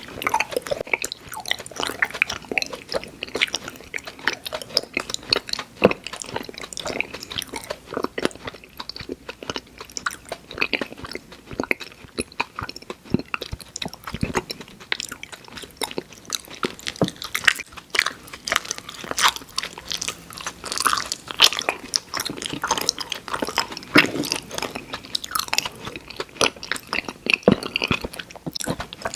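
Close-miked chewing and biting of candy: a dense, irregular run of small crunches and clicks.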